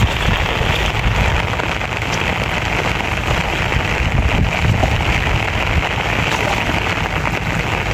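Heavy downpour: rain falling steadily in an even, dense hiss.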